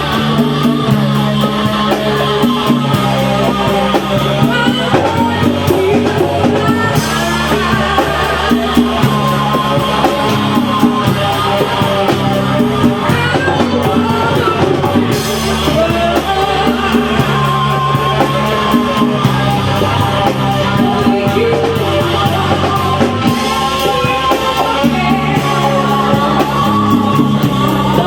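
A rock band playing a song with a singer, drums and a bass line that changes note every second or so.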